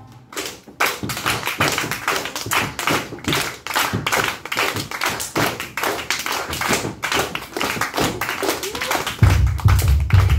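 A group clapping hands in a steady rhythm, a few claps a second, with taps and thumps of bare feet on a wooden floor. A deep, loud sound comes in about nine seconds in.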